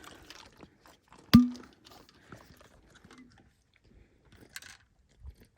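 Faint crunching and small handling rustles during a trail rest stop, with a dog eating a treat and a water bottle being handled. One sharp knock about a second and a half in rings briefly and is the loudest sound.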